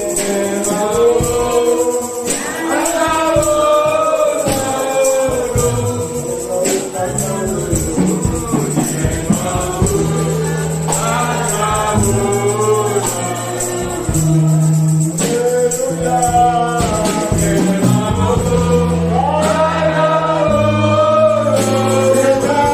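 Gospel praise song: voices singing together with a tambourine shaken and struck throughout, over held bass notes that change every few seconds.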